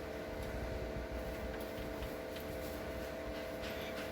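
Someone eating between bites: a few faint, soft clicks over a steady background hum.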